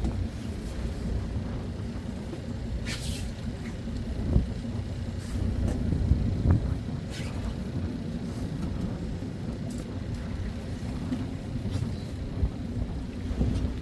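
Low, steady rumble of wind buffeting the microphone, with a few light clicks from the baitcasting reel being handled.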